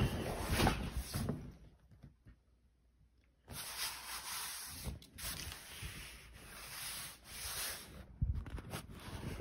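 A hand rubbing and brushing over the surface of an inflatable kayak. The scratchy rubbing stops for about two seconds, then runs on for several seconds, with a few soft bumps near the end.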